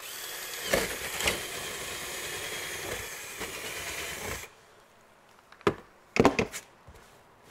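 Power drill running under load for about four and a half seconds as it bores into the fibreglass roof, then stopping. A few short knocks follow.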